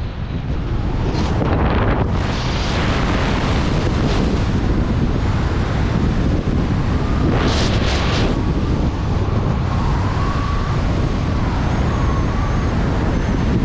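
Wind rushing over the camera microphone of a skydiver descending under an open parachute canopy, steady with gusty swells, and a faint wavering whistle in the second half.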